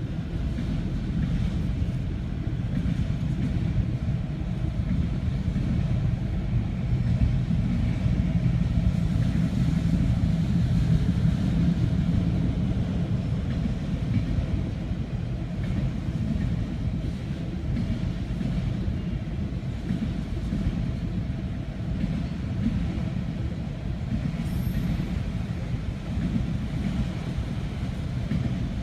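Autorack freight train rolling past, a steady rumble of its wheels on the rails.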